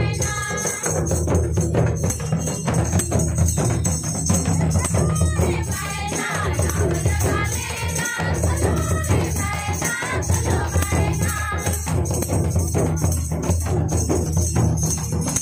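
A group of women singing a folk song together, with mandar and other barrel drums beating a fast, steady rhythm under the voices.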